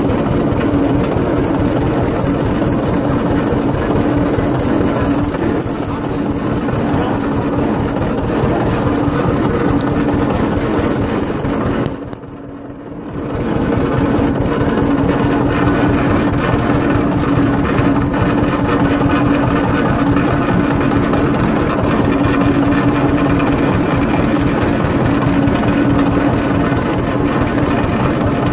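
Farm tractor engine running steadily with a constant low drone as the tractor drives across a field. The sound drops away briefly about twelve seconds in, then comes back at the same level.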